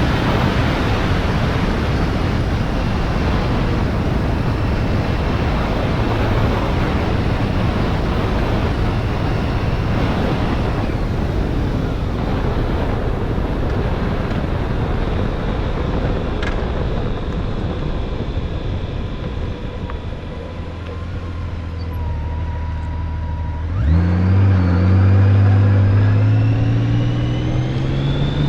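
Motorcycle under way with heavy wind and road noise. The noise eases briefly, then near the end the engine pulls away hard, its pitch rising as it accelerates.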